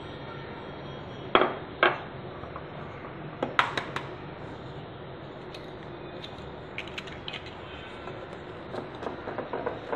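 Glass bowls and a wire whisk clinking against a glass mixing bowl. There are two sharp knocks about a second and a half in, a cluster of clinks around three and a half seconds in, and a run of quicker, lighter ticks near the end, over a steady hiss.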